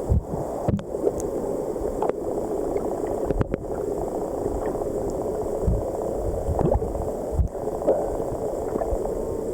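Steady rush of a flowing river, with a few low thumps and brief clicks.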